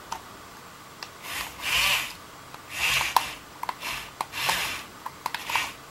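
Scattered light clicks of a plastic RC remote control's buttons and sticks being pressed, with several short soft hissing or rubbing noises in between.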